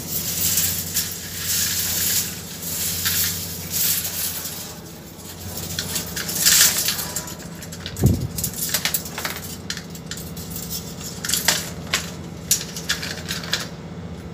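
Metal sounding tape being run down a ballast tank's steel sounding pipe: irregular rattling, scraping and clinking as the tape unreels and its weight knocks against the pipe, with a dull knock about eight seconds in. A steady machinery hum runs underneath.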